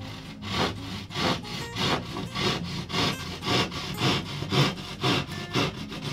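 Hand pad saw cutting through 15 mm plasterboard in steady back-and-forth rasping strokes, about two a second.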